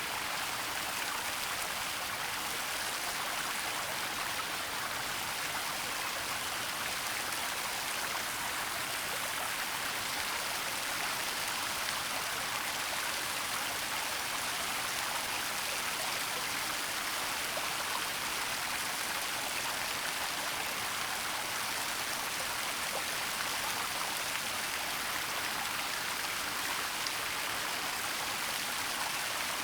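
A waterfall's steady, even rush of falling water, mostly hiss with little low rumble.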